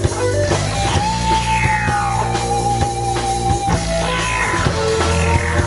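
Live band playing through a PA: electric guitar, bass guitar and drum kit, with a long held high note from about a second in lasting nearly three seconds.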